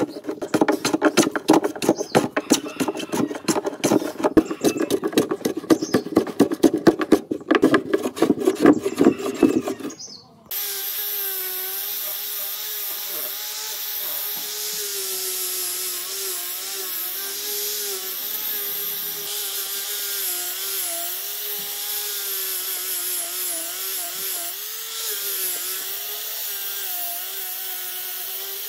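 A wooden hand plane shaving a wooden speaker cabinet in rapid, repeated strokes. About ten seconds in the planing stops, and an electric angle grinder with a sanding pad takes over: it runs steadily with a whine whose pitch dips and wavers as the pad is pressed onto the wood.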